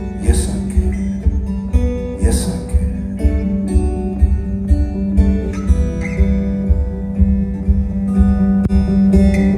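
Live folk-rock band playing an instrumental passage: strummed acoustic guitar over a steady kick-drum beat, with two cymbal crashes in the first few seconds.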